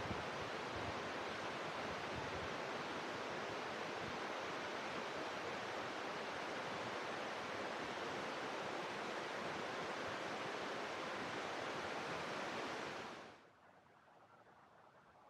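Steady rushing noise of flowing or falling water, cutting off abruptly about thirteen seconds in and leaving only faint background.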